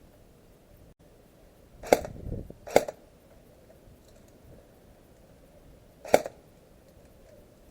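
Three single airsoft gun shots, sharp snapping cracks: two about a second apart, then a third some three seconds later.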